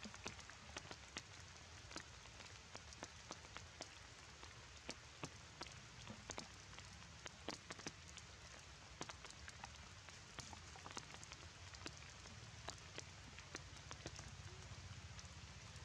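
Rain falling: a faint, steady hiss with many irregular sharp ticks of single drops landing on wet ground and leaves.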